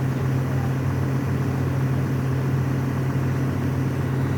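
Excavator's diesel engine running steadily at constant speed, a low even drone.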